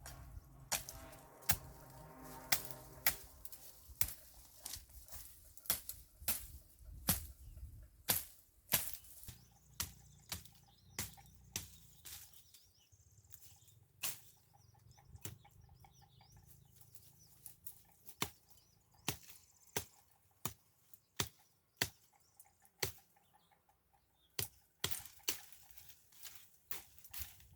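Repeated sharp chopping strikes of a hand tool cutting weeds, irregular, about one or two a second. A short animal call is heard near the start.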